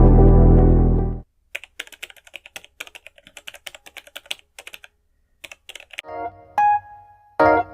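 Ambient music ends about a second in, followed by rapid computer-keyboard typing clicks for about four seconds. Electric piano music starts near the end.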